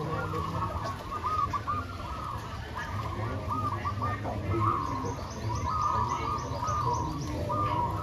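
Many caged zebra doves (perkutut) cooing at once, their rolling phrases overlapping continuously. A quick run of high chirps from another bird comes about midway.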